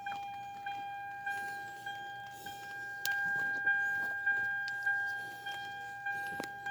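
A 2011 Hyundai Elantra's electronic warning chime dinging over and over, about one and a half dings a second, with a few sharp clicks from parts being handled.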